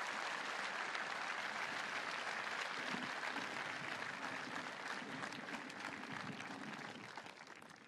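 Large audience applauding, a dense steady clatter of many hands that dies away over the last second or so.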